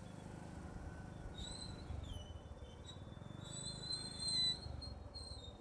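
Motorcycle ride: a steady low engine and road rumble, with several short high whistling squeals over it; the longest and loudest comes about four seconds in and lasts about a second.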